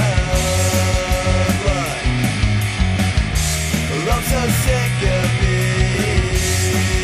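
Recorded pop-punk band playing an instrumental passage. Distorted electric guitars carry a sustained melody line that slides in pitch, over a steady bass line and driving drums with cymbal crashes, with no singing.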